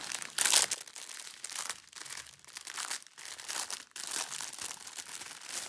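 Small plastic packets of diamond painting drills being handled, crinkling irregularly.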